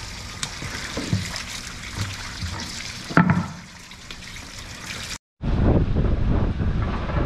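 Running water trickling, with light knocks on wooden boards and one louder knock about three seconds in. After a sudden break, wind rumbles on the microphone.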